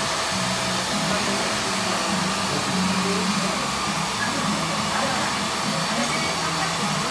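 Handheld hair dryer blowing steadily, with low voices underneath.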